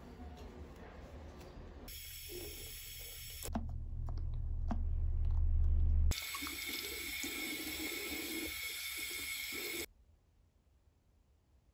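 Water running, in a few short stretches that change abruptly, growing louder in the middle and stopping suddenly near the end.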